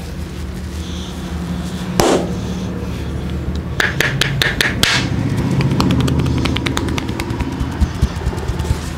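Hand head massage: a slap on the scalp about two seconds in, a quick flurry of sharp taps around four to five seconds, then fine crackling as the hair is rubbed and twisted between the fists, over a steady low hum.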